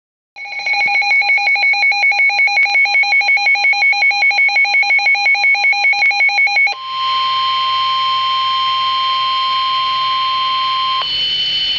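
Emergency alert broadcast tones: a rapid electronic beeping, about five beeps a second, for some six seconds, then one long steady alert tone for about four seconds that cuts off, leaving a steady hiss.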